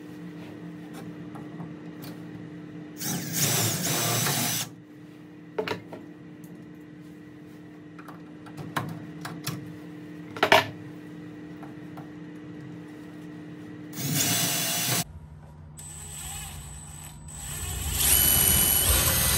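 Milwaukee cordless drill with a long 3/32-inch bit, run in three short bursts into aluminium aircraft structure, the last burst the longest. There is a sharp knock about ten seconds in.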